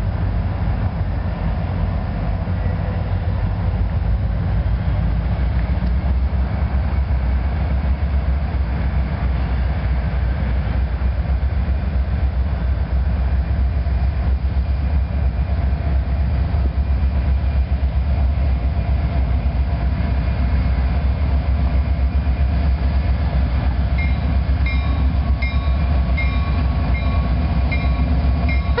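Approaching diesel freight train: a steady low rumble, joined in the last few seconds by high ringing tones that repeat in short pulses.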